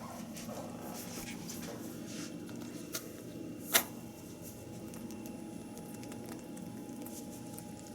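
Rabbit licking and lapping fruit-flavoured liquid medicine: a run of soft, quick wet licks. One loud sharp click about four seconds in, with a smaller one just before it.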